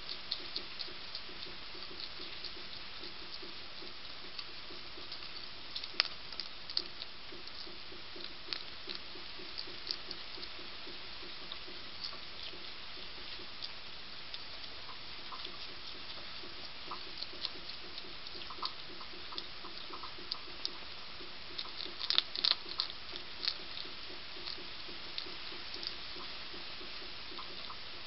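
European hedgehog chewing and crunching hard dry food from a dish, heard as scattered sharp crunches and clicks over a steady hiss. The crunching is densest about two-thirds of the way in.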